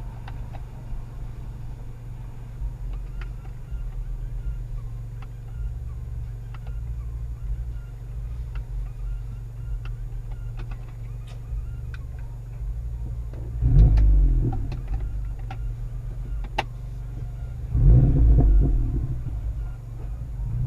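Turbocharged 2.0-litre four-cylinder of a VW Mk7 GTI with an APR Stage 2 tune, downpipe and Magnaflow cat-back exhaust, running at a low steady drone with sharp exhaust pops scattered through it. The engine is revved twice, about two-thirds in and again near the end, with the loudest single pop between the two revs.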